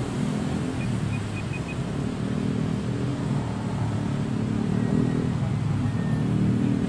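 Electric motor and air propeller of an RC airboat running, a steady buzzing drone that shifts a little in pitch and level as the throttle changes. A few short, faint high pips sound about a second in.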